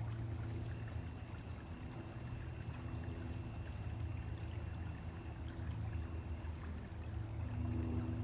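Stream flowing steadily, a continuous rush of running water with a steady low hum underneath.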